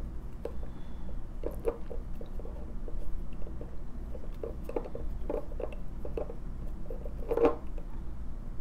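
Faint scattered clicks and rubbing from fingers twisting the plunger knob of a fountain pen's ink converter, drawing ink up from the bottle. A slightly louder rub comes about seven seconds in.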